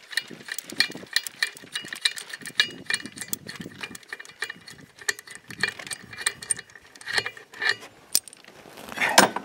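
Socket ratchet clicking in quick, irregular runs as the center bolt of a snowmobile drive clutch is spun out. A louder metallic clatter comes near the end.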